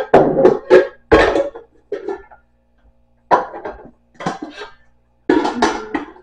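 Stainless steel pot and its colander insert clanking and scraping as they are handled, in a series of irregular knocks, some ringing briefly.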